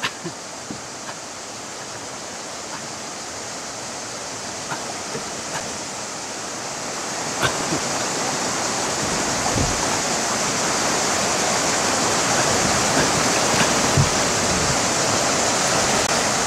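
Whitewater rapids rushing over rocks, a steady hiss of water that grows gradually louder, with a few light knocks and low thumps over it.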